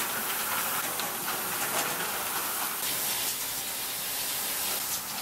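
Centrifugal parts feeders running with plastic deodorant parts on their spinning discs: a steady hiss with scattered light clicks.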